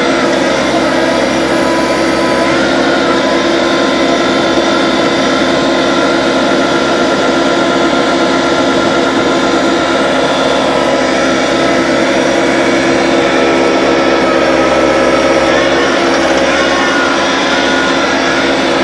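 A skid steer loader's diesel engine running steadily, powering a hydraulic stump grinder attachment, with small rises and dips in pitch.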